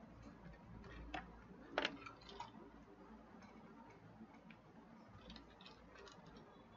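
A few faint, scattered clicks and taps over quiet room tone, the sharpest about two seconds in.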